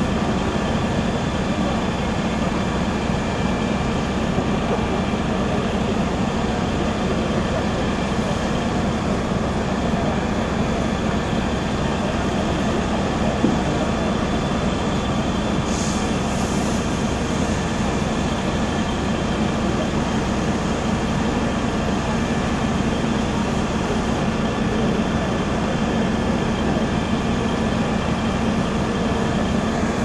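Fire engine diesel engines and pumps running in a steady drone, supplying water to the hoses and the aerial ladder's monitor. A single short knock comes about halfway through.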